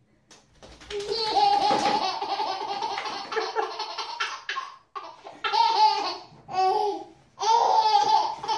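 A baby laughing in long, high-pitched runs of belly laughter, starting about a second in and broken by short pauses about five and seven seconds in.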